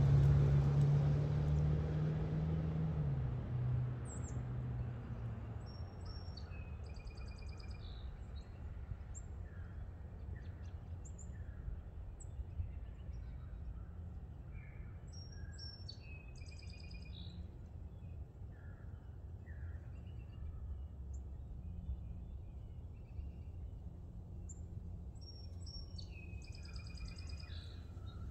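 Hummer H3 Alpha's 5.3L V8 with a Magnaflow cat-back exhaust fading away as it drives off down the street, gone after about five seconds. Then a songbird sings the same short chirping phrase three times, about every ten seconds, over a low steady outdoor rumble.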